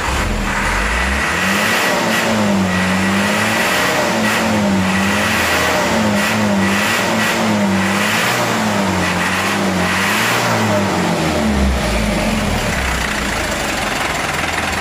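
Mitsubishi Canter HDL 136 diesel engine running rough and unsteady, its speed swinging up and down every second or two before settling steadier near the end. This is the hunting idle of a broken injection-pump timer, found broken on teardown.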